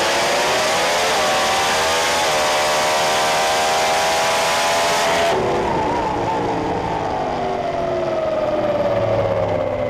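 Drag race car making a pass at full throttle, its pitch jumping twice in the first few seconds. About five seconds in the throttle is lifted: the hiss drops away and a whine falls steadily in pitch as the car slows.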